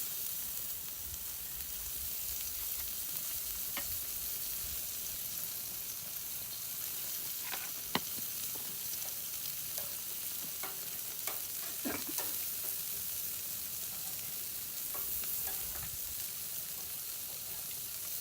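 Meat sizzling on a charcoal grill: a steady hiss, with a few sharp clicks and pops, the loudest about 8 and 12 seconds in.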